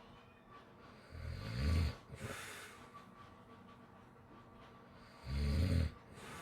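Two deep snores about four seconds apart, each followed by a breathy exhale.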